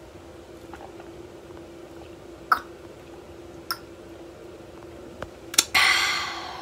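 A person drinking from a plastic bottle: faint swallowing gulps, twice, then a loud breathy exhale near the end, the satisfied 'ahh' after a long drink. A faint steady hum runs underneath.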